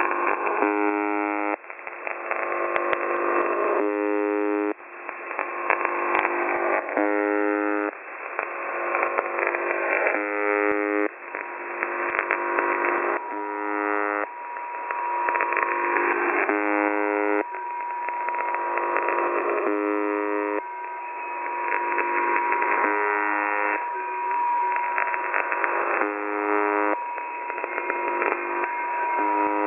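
UVB-76 'The Buzzer' shortwave signal heard through a radio receiver: a harsh buzz tone about a second long repeats every two and a half to three seconds. Between the buzzes is dense, crackling interference with falling, siren-like glides. About eleven seconds in, a steady whistle tone joins.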